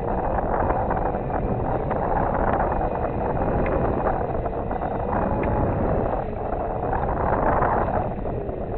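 Wind rushing over the microphone of a masthead-mounted camera on a sailboat under sail: a steady, dense rush with a faint tone that wavers slowly up and down in pitch.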